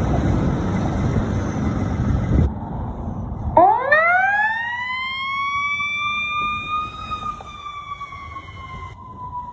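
Road and vehicle noise, then about three and a half seconds in a fire engine's siren starts, rising in pitch for about three seconds before slowly falling away.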